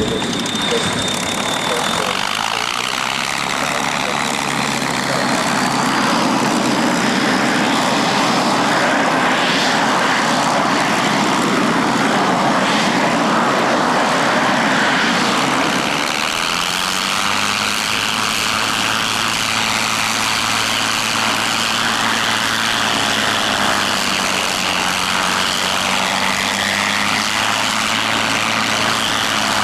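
P-51D Mustang's Packard Merlin V-12 engine running on the ground as the fighter taxis, its propeller turning; a steady, loud engine note that shifts to a new pitch about halfway through.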